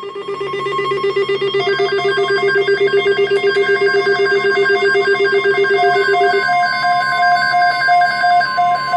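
Weather-alert radios sounding their alarms for an incoming NOAA Weather Radio alert: a fast warbling electronic tone that stops about six and a half seconds in, an evenly repeating beep that starts about two seconds in, and a steady high tone.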